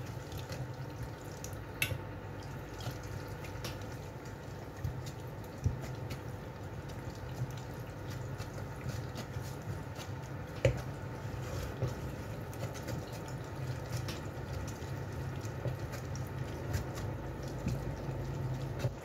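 Hand-cranked stainless-steel food mill pressing cooked tomatoes: wet squelching of the pulp being forced through the perforated disc, with a few sharp metal clicks from the turning blade and crank. A steady low hum runs underneath.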